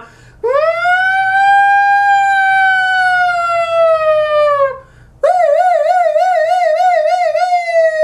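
A man imitating an emergency siren with his voice: one long wail that sweeps up quickly and then slowly falls before cutting off. After a short break comes a fast warbling wail, about four wobbles a second, that settles into a steady tone.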